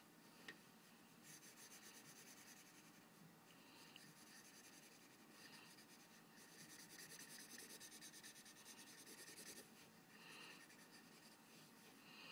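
Faint scratching of a green Sharpie highlighter's felt tip scribbling back and forth on paper, colouring in an area. The quick strokes come in two longer spells, one near the start and a longer one in the middle.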